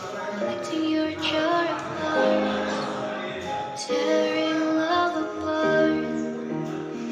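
Background music with a sung melody over held instrumental notes.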